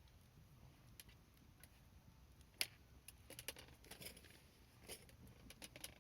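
Wood campfire crackling quietly, with one sharp pop about two and a half seconds in and a flurry of snaps and crackles after it.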